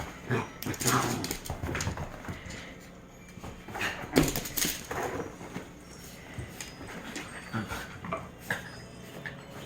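Excited pet dogs vocalising in short irregular bursts, loudest about a second in and again about four seconds in.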